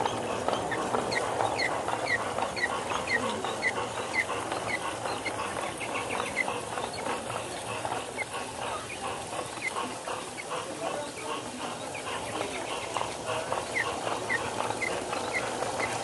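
Rolling clatter of a G-scale garden train's wheels on the track, heard from a car riding in the train. Over it, short high chirps repeat about twice a second in runs that stop and start again.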